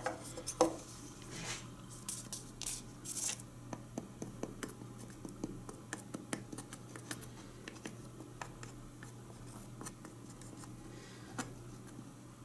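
Faint scraping and light clicks of a thin wooden stick spreading glue over wooden pieces and their dowels, with small knocks of the wood being handled. A low steady hum runs underneath.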